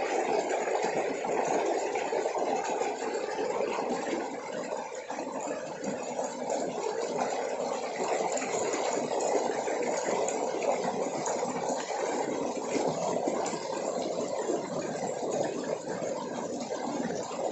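Water cascading over rocks: a steady, even rushing with no pauses or changes.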